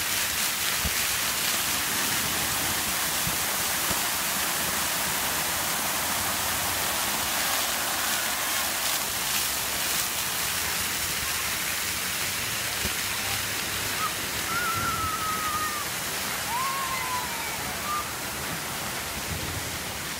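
Splash-pad fountain jets spraying water onto wet concrete: a steady hiss and patter, easing slightly near the end. A few brief high-pitched calls about two-thirds of the way in.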